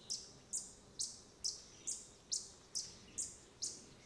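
A bird calling: a high, sharp chirp, each note falling in pitch, repeated steadily about two and a half times a second.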